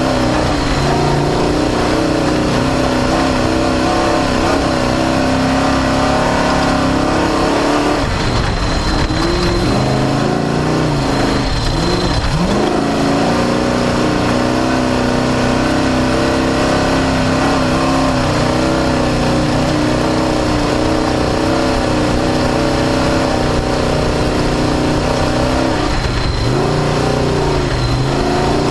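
Off-road desert race car engine running hard under load, heard from on board over a steady rushing noise. The revs drop and climb back twice, once about ten seconds in and again near the end, as the throttle is lifted and reapplied.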